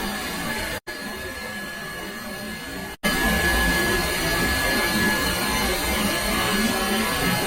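A steady mechanical drone with a thin high whine running through it, broken by two abrupt cuts about one second and three seconds in, and louder after the second cut.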